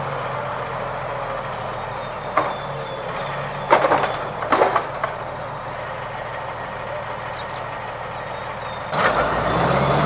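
Amkodor 2661-01 forwarder's diesel engine running steadily, with a few sharp knocks from the machine and its log load in the middle. Near the end the engine revs up and gets louder.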